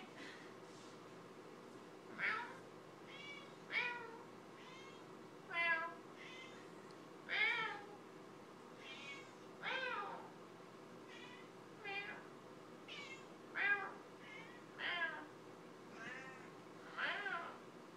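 Black domestic cat meowing over and over, short calls about one every second or so, some rising and falling in pitch.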